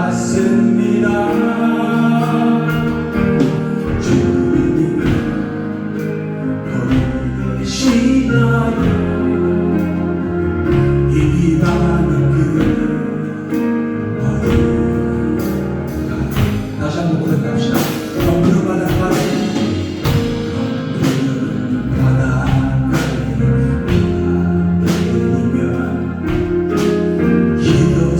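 Worship band music: a slow contemporary worship song with singing over instrumental accompaniment.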